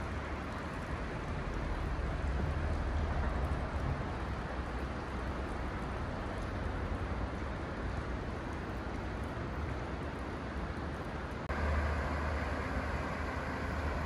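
Steady rush of a mountain river flowing through a rocky gorge, with a low rumble underneath. The sound shifts abruptly about eleven and a half seconds in, growing a little louder.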